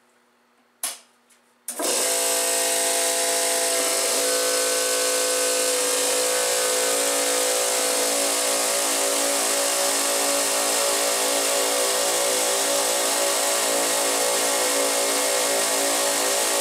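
A bank of Harbor Freight Central Pneumatic 2.5 HP, 125 PSI air compressors starting up in sequence: a click, then the first compressor motor starts about two seconds in, and the others join one after another about two seconds apart. All then run together in a loud, steady drone with a beating pattern.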